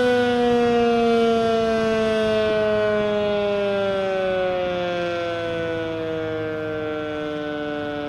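Sentry 3V8 electromechanical outdoor warning siren on its steady alert tone, its pitch sliding slowly and smoothly downward and the sound easing off as the siren begins to wind down.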